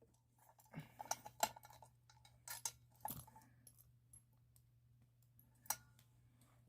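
Faint, scattered small clicks, taps and rattles from handling a Firelight BG6 fire alarm pull station, with a few sharper knocks about a second and a half, three seconds and nearly six seconds in.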